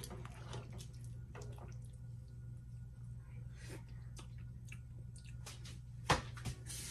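Vegetable broth in a pan on the stove: a spoon stirs briefly, then liquid drips and the pot bubbles faintly, with small ticks over a steady low hum. One sharp knock about six seconds in is the loudest sound.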